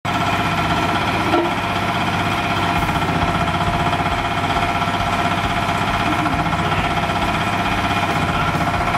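Concrete block machine's electric vibration motor running, shaking the mould table in a loud, fast, steady rattle with a steady hum as concrete mix is fed into the mould; a brief knock about a second and a half in.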